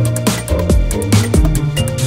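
Electronic background music with a steady beat: deep bass-drum hits that drop in pitch, quick high ticks and a held chord.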